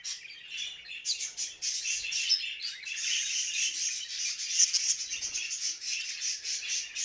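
Budgerigars chattering in a courtship warble: a continuous, busy stream of rapid high chirps, clicks and squeaks, a little sparser in the first second.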